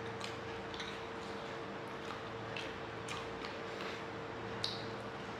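Two people chewing and eating puri with chana curry by hand: a few faint, scattered wet clicks and smacks over a steady faint hum.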